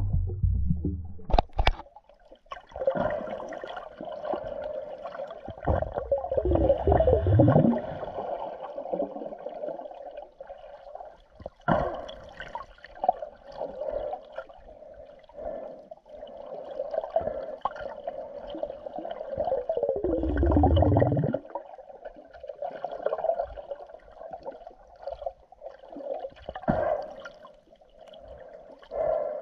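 Water gurgling and bubbling as heard underwater through a camera in a waterproof housing, a steady crackly wash with two louder low swirls, about six and twenty seconds in.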